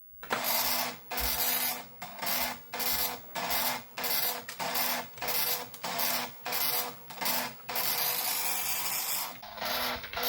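Philips NMS 1421 7-pin dot matrix printer printing a BASIC program listing: short bursts of rapid print-head chatter, roughly three every two seconds, with brief gaps between them.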